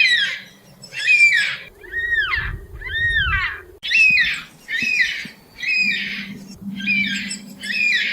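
Yellow-tailed black cockatoo calling: a run of about nine rough squawks, roughly one a second, with two smoother arching wails that rise and fall about 2 and 3 seconds in.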